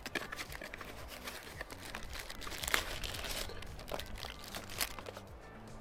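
Crinkling and rustling of the portable espresso maker's packaging, a cardboard box and clear plastic wrap, being opened and handled. It comes as many small, irregular crackles and clicks.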